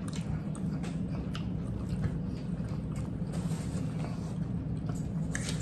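People eating at a table: quiet chewing and a few light clicks of a fork against a plate, over a steady low hum.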